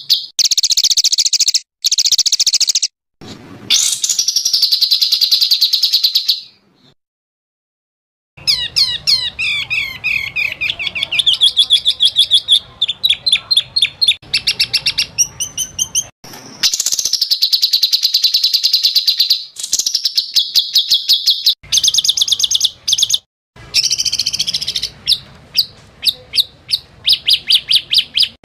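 A recorded songbird 'masteran' compilation: fast runs of sharp, repeated high notes and rattling trills, spliced from several recordings. It cuts off abruptly between segments, with a silent gap of about two seconds near the quarter mark.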